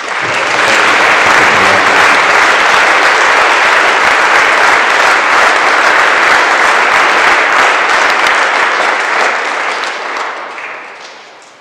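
Audience applauding: dense clapping that starts at once, holds steady for about ten seconds, then dies away near the end.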